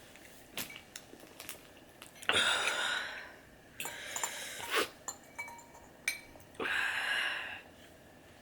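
Heavy breaths blown out through the mouth, two long ones and a softer one, from a mouth burning with spicy ramen, with a few small clicks and clinks of a utensil against the bowl in between.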